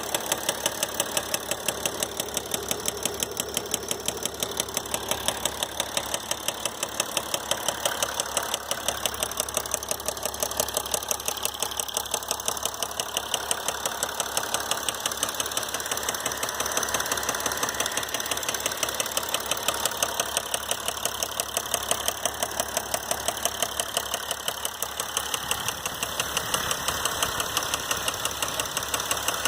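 2012 Mercedes GL350's 3.0-litre V6 diesel running steadily with a sharp, gnarly tick repeating at an even pace, about four a second. The noise comes from a failed connecting-rod bearing: rod knock.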